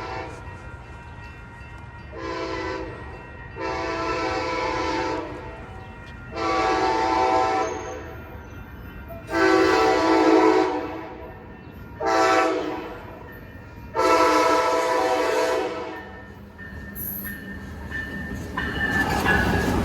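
Locomotive air horn sounding a series of chord blasts, ending in the long-long-short-long grade-crossing pattern. Near the end, the rising rumble and rattle of the approaching train.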